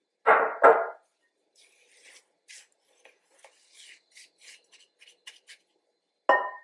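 A silicone spatula stirring and scraping buttery digestive biscuit crumbs around a ceramic mixing bowl: faint, irregular rasping strokes, about two a second. Two short, loud pitched sounds come right at the start, and another near the end.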